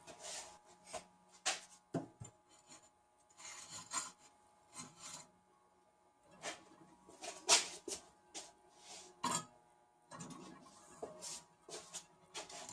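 Steel wire dragged across a ledge in a string of short, irregular rasping scrapes, about one a second, some much louder than others, over faint steady tones.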